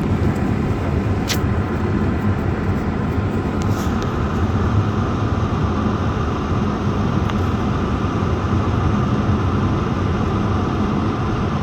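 Subaru Outback driving through deep snow: a steady engine and tyre rumble at an even level, with a couple of faint clicks in the first few seconds.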